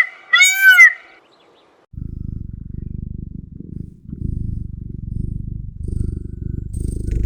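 Loud, pitched honking calls end about a second in. After a short pause, a low, rapidly pulsing animal rumble, like a purr, starts about two seconds in and goes on.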